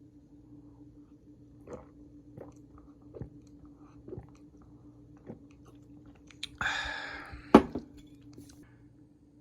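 Close-up eating sounds: crisp bites or chews about a second apart, then a brief rustle about seven seconds in that ends in a sharp clack, over a faint steady hum.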